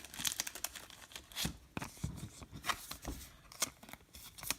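Baseball cards and a foil pack wrapper being handled: irregular crinkling, rustling and sliding of card stock as cards are flipped one after another.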